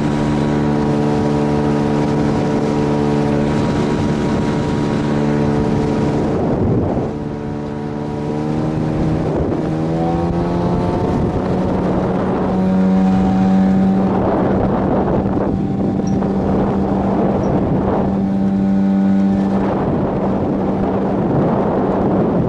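Boat outboard motor running steadily; about seven seconds in the engine note drops, then climbs back to a higher steady note as the throttle is opened again. Wind buffets the microphone.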